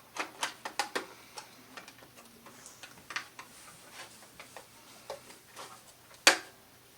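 Plastic Lego bricks clicking and rattling as they are handled: a quick run of clicks in the first second, scattered lighter clicks after, and one sharp loud click a little past six seconds.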